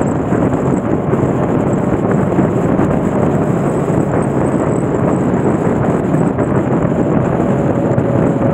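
Steady wind rush over the microphone of a moving motorcycle, blended with its road and engine noise, even and unbroken throughout.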